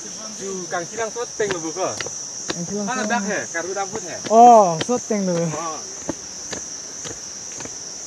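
Steady high-pitched buzz of insects calling in chorus, unbroken throughout, with people's voices over it for most of the first six seconds, loudest about four and a half seconds in.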